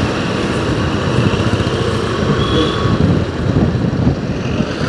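Motor vehicle running on the road: a steady, loud rumble of engine and road noise.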